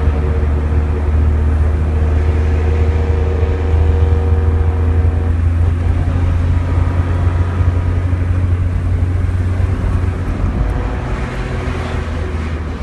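Tofaş car's modified exhaust with a Varex valved muffler, a deep steady drone while driving, heard from inside the cabin.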